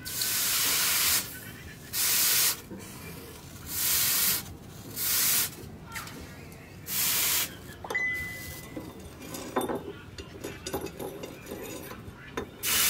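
Hot forged steel axe head quenched in a water trough: short bursts of hissing, each about a second or less, as it is dipped in and out five times in the first half, then a few light metal clinks and one more hiss near the end.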